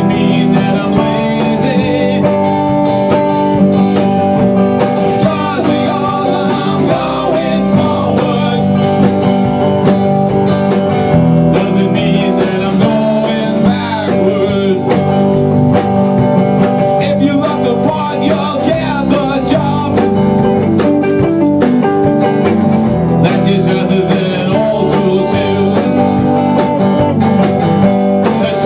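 Live rock band playing: electric guitar, bass guitar and drum kit together in a steady, continuous groove.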